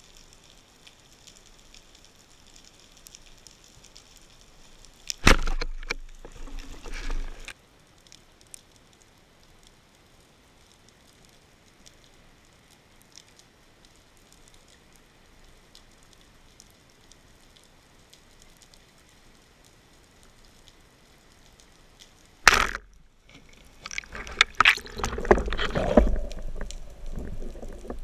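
Speargun shots heard underwater: a sharp crack about five seconds in and another about three-quarters of the way through, each followed by a few seconds of churning water and clatter as the speared fish struggles on the shaft. Between them there is only a faint, even water hiss.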